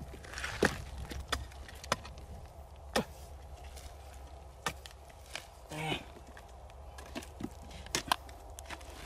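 A hand digging tool chopping into hard, dry, cracked clay mud: irregular sharp strikes a second or more apart, the strongest about a second in and near three seconds, with a quick double strike near the end.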